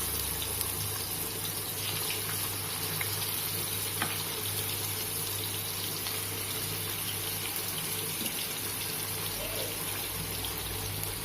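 Masala-coated fish pieces frying in hot oil on a dosa griddle: a steady sizzle with a few small crackles.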